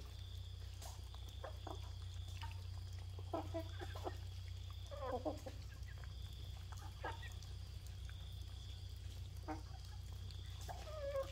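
Chickens clucking in short calls every second or two, over a steady low hum.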